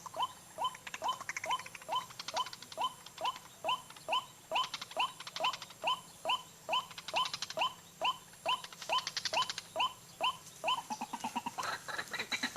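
White-breasted waterhen calling: a monotonous series of short rising 'kwak' notes, about three a second, breaking into a quicker stutter near the end.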